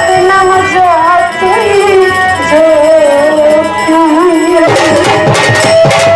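Bengali baul-style rendition of an Islamic gazal: a woman singing a gliding melody with violin and hand drums. A quick run of drum strokes comes near the end.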